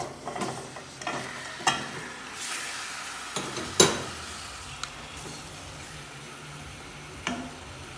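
Chicken pieces sizzling as they go into hot oil in a pan, the hiss swelling about two and a half seconds in. A few sharp knocks against the pan, the loudest about four seconds in.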